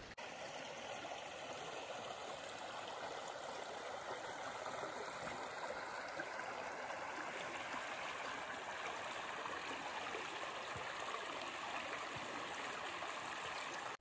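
Shallow stream water running steadily over stones and gravel.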